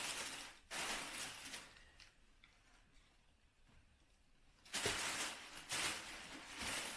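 White tissue paper rustling and crinkling as it is handled and pulled out of a cardboard box, in two spells with a quieter gap in the middle.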